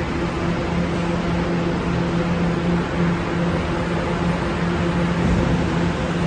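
An R211A subway train standing at the station platform gives off a steady low hum over a constant hiss of station noise.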